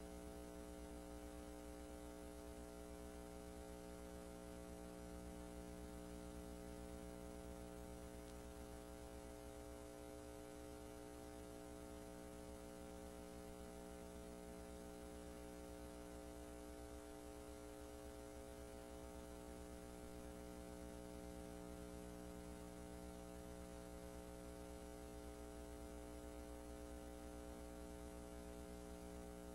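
Steady electrical hum with faint hiss and no other sound: the empty audio track of a silent film transfer.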